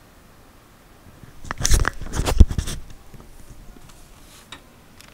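A burst of close knocks, clatter and rubbing about a second and a half in, lasting about a second and a half and very loud, with a few faint clicks after it: something being handled right at the microphone.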